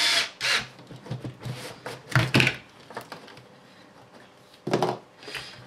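Plastic and metal RC kit parts being handled and set down on a workbench: a few separate short knocks and clatters, the loudest about two seconds in and another near the end.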